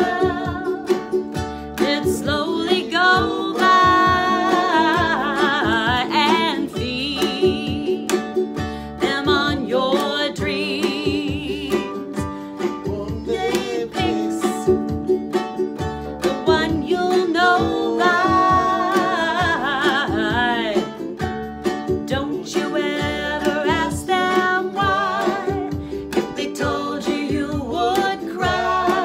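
Live acoustic duo: a woman singing a folk song while strumming a ukulele, with an upright double bass plucked underneath.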